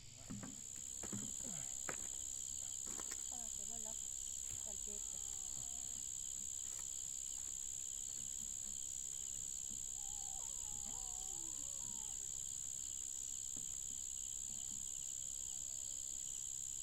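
Steady, high-pitched chorus of insects trilling without a break, with a few faint warbling bird calls beneath it and some light clicks in the first couple of seconds.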